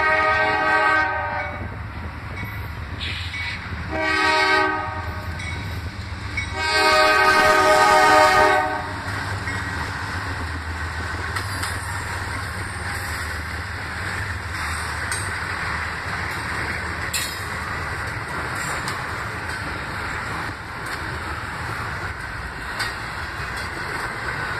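Freight locomotive air horn sounding three blasts, the end of a long one, then a short one about four seconds in, then a long one, in the rhythm of a grade-crossing signal. Then the steady rumble of a long train of double-stack container cars rolling past, with occasional clicks of wheels over rail joints.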